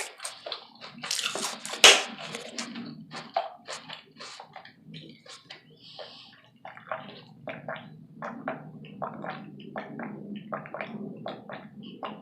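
Close-miked wet chewing and mouth smacking of a mouthful of taco salad: a quick, irregular run of short clicks, with one louder bite about two seconds in.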